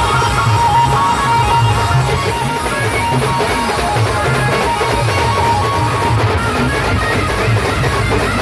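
Loud amplified band music, a plucked or keyboard-like melody over a pulsing heavy bass beat, played through a large loudspeaker rig. Live drummers beat side drums with sticks over it.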